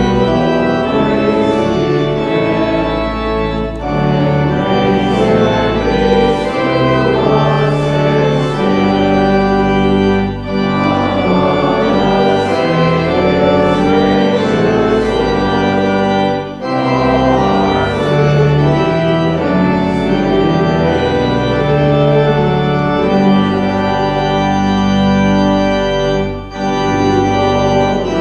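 Church organ playing a hymn in sustained chords, phrase by phrase, with a brief break between phrases every several seconds.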